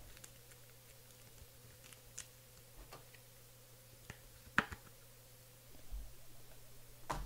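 A few faint clicks and taps of a clear plastic card case being handled and closed around a trading card, the sharpest click about two-thirds of the way through, over a faint steady hum.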